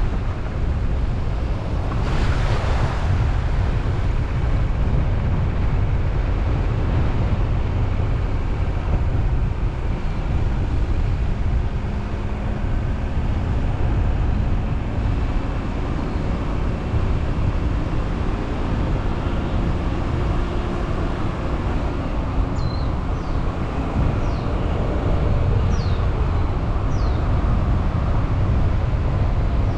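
Steady low wind and road rumble of a car on the move, picked up by a vehicle-mounted camera. A brief whoosh comes about two seconds in, and a few short, high, falling chirps sound near the end.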